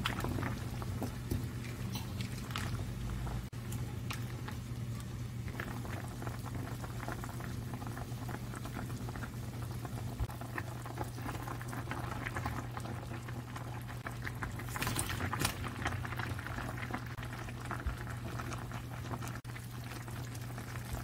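Soy-braised chicken stew boiling hard in a stainless steel pot: a dense, steady crackle of bubbling over a constant low hum.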